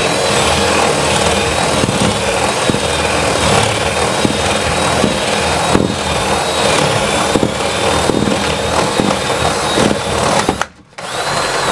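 Cordless drill boring through wood, the motor running steadily under load with a high whine. It stops about ten and a half seconds in, then starts again for a short second run near the end.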